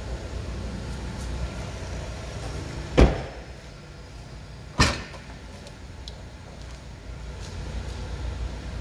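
The rear door of a 2009 Lacetti sedan is shut with a heavy thump about three seconds in, followed nearly two seconds later by a sharper clunk as the trunk lid latch releases and the lid pops open.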